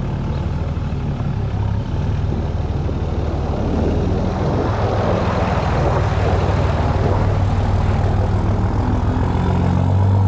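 Dodge pickup's Cummins inline-six turbo-diesel running steadily just after a cold start in about −10 degree weather, the engine not yet warmed up. It gets a little louder about two seconds in and again near the middle.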